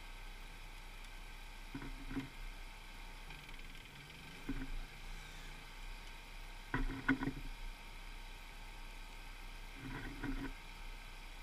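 Small metallic clicks in short clusters a couple of seconds apart, from an FN Trombone .22 rimfire pump-action rifle being handled as cartridges are loaded into its tube magazine.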